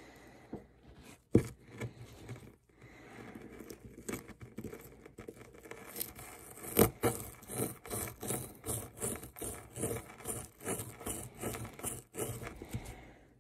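Small plastic digging pick scraping and gouging at a hard dig-kit block, with a sharp knock about a second in. From about halfway, the scraping comes in quick, even strokes of about three a second.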